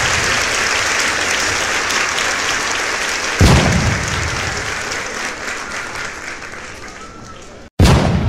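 Applause that slowly dies away, broken by a sudden deep boom about three and a half seconds in and another near the end, just after a split-second cut to silence.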